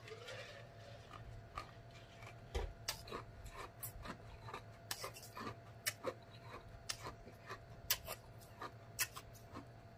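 A man drinking from a jug, then faint wet mouth clicks and lip smacks at irregular intervals as he savours the drink.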